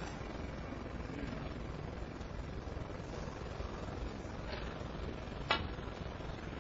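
Snooker cue tip striking the cue ball, one sharp click about five and a half seconds in, over a steady low hum of the arena.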